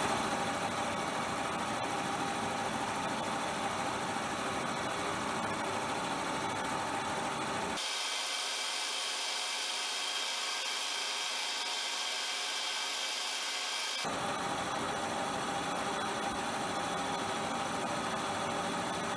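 Milling machine running an end mill along a slot in a Myford Super 7 lathe cross-slide, cutting the shallow recess for a DRO magnetic scale: a steady machining hum and cutting noise. About eight seconds in, the low rumble drops away for some six seconds and the cut sounds brighter, then returns.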